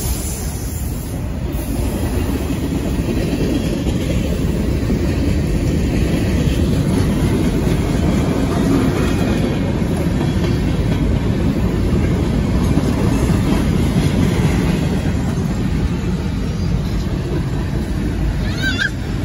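Freight train of autorack and tank cars rolling past at a grade crossing, a steady rumble with the clickety-clack of wheels over the rail joints.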